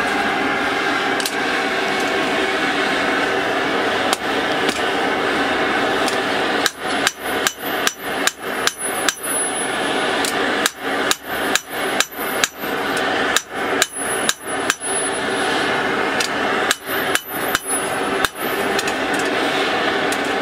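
Hand hammer striking a red-hot steel kitchen-knife blade on an anvil, in four quick runs of strikes, about two or three a second, starting a few seconds in. Under it the forge's blower runs with a steady whir.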